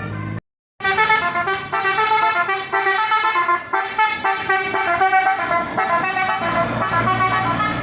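Basuri musical vehicle horn playing a fast melody of quickly changing notes over a low engine hum. It starts about half a second in, after a brief cut to silence.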